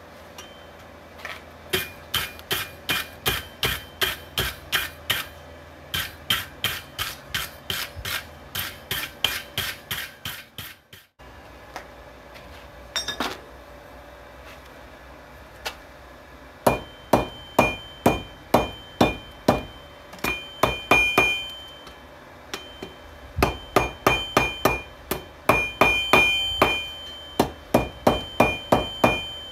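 Hand hammer striking hot steel on a 66 lb anvil, forging out a railroad spike: runs of quick blows, about three a second, with short pauses between. In the later runs each blow leaves the anvil ringing with a clear high tone.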